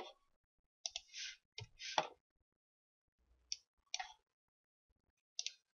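A handful of faint, separate computer keyboard keystrokes and clicks, spaced out with quiet gaps between them.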